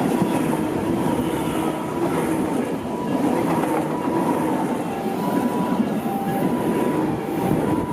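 A Tobu Tojo Line train runs past over a level crossing, with a steady loud rumble of wheels on rail. The crossing's warning bell keeps ringing through it in alternating high and low tones.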